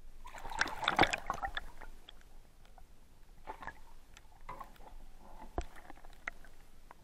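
Water splashing as a hooked pike thrashes at the surface: a burst of splashing about a second in, then a few smaller splashes and a sharp knock in the second half.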